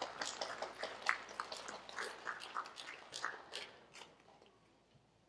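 Scattered hand claps from an audience, irregular and thinning out, fading away almost to nothing by the end.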